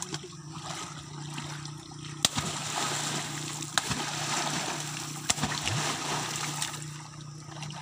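People splashing and thrashing in shallow muddy canal water while grabbing for fish by hand. The splashing builds about two seconds in and eases near the end, with a few sharp slaps, over a steady low hum.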